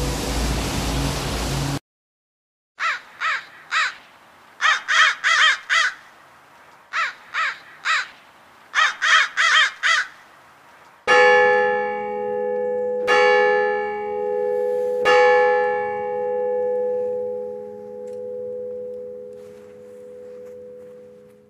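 Ambient music cuts off in the first two seconds; then a crow caws in quick runs of three to five caws. About halfway through, a bell strikes three times, about two seconds apart, and rings out slowly.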